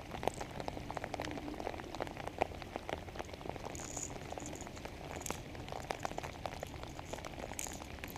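Rain falling steadily, with many irregular drop ticks close to the microphone.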